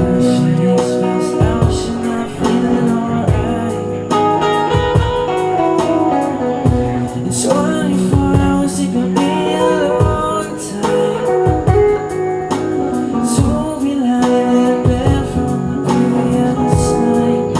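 Live band playing a reggae song: guitar over a steady beat of kick drum and cymbals.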